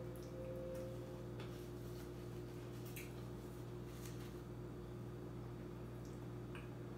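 Eating and food-handling sounds: a few light clicks and ticks from a fork and fingers picking at food in a plastic takeout container, over a steady low hum.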